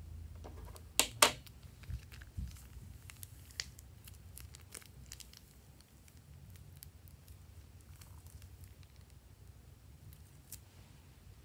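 Plastic piping bag crinkling as hands squeeze thick slime out of it into a dish, with two sharp clicks about a second in and a few fainter ticks after.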